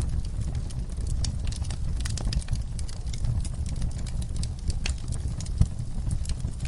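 Fire in a fireplace crackling: many small irregular pops and snaps over a steady low rumble, with one louder pop near the end.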